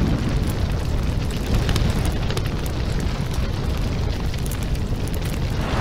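Steady low rumble of a large explosion's fire burning on, with scattered faint crackles.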